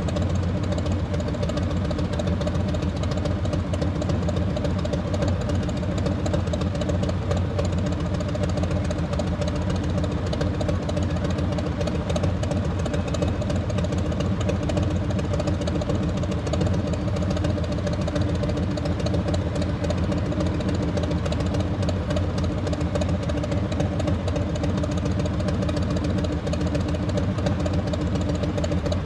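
Car engine and road noise while driving: a steady low hum with a few steady tones above it.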